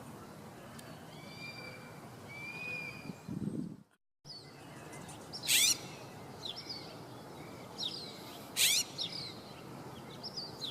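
Wild songbirds calling: soft whistled notes at first, then after a brief dropout in the recording, two loud, sharp descending calls about three seconds apart among quicker short chirps. A low muffled rumble comes just before the dropout.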